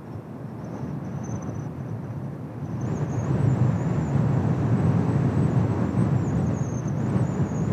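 Kawasaki T-4 jet trainers flying a diamond-formation low pass: the rumble of their turbofan engines builds about three seconds in and stays loud, with a thin high whine that wavers in pitch.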